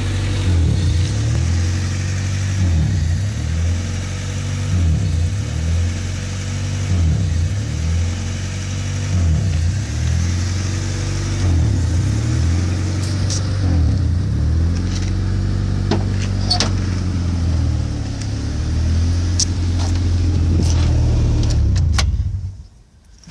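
1995 Honda Del Sol's four-cylinder engine idling and surging: the revs dip and pick back up over and over, about every two seconds, a fault whose cause the owner does not know. A few light clicks in the second half, and the engine stops near the end.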